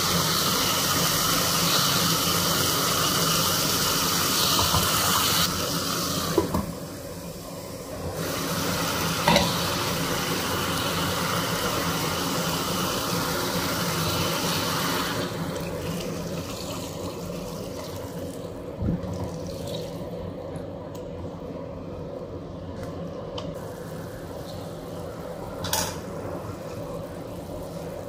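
Chicken and green beans sizzling in a pot on a gas stove, with a few sharp knocks of utensils against the pot. About halfway through, the sizzle dies down as coconut milk is poured in, leaving a quieter simmer under a low steady hum.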